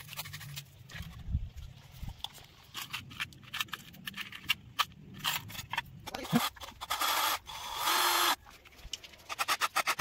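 Cordless drill-driver running twice in short steady bursts about seven and eight seconds in, driving screws into a wooden switch-board frame, after a stretch of scattered clicks and rattles from handling the box and its parts.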